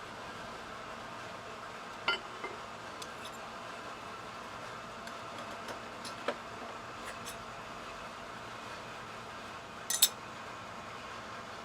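A few short metal clinks of tools and parts being handled: one about two seconds in, one about six seconds in, and a louder quick double near the end, over a steady workshop hum.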